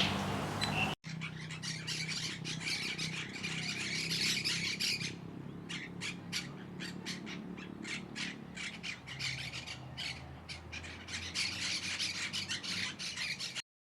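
Birds squawking: a fast, harsh chatter of many short rasping calls, denser at first and broken into separate quick calls in the middle, stopping abruptly near the end.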